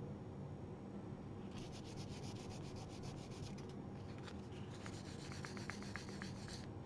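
Very fine sandpaper rubbed lightly over a small spot on a painted wooden icon board, smoothing a raised speck. Two spells of rapid, short back-and-forth strokes, the first beginning about a second and a half in and the second a little after the middle, with a few small ticks among the later strokes.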